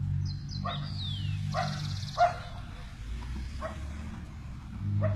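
A dog barking, short barks about once a second, over a steady low hum.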